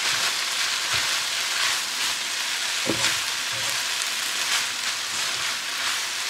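Stir-fried mie noodles sizzling steadily in a hot stone-coated wok, turned down to medium heat, as they are tossed with grill tongs, with a few soft knocks of the tongs in the pan.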